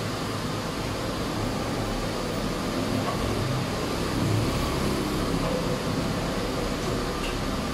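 Steady mechanical hum and hiss with a low drone and no distinct events.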